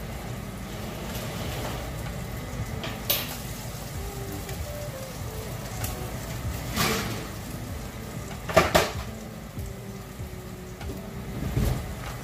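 Metal kitchen clatter as the baking pan of pork chops is taken from the oven: a few sharp clanks, the loudest a quick pair about two-thirds of the way through, over a steady low hum and faint sizzle.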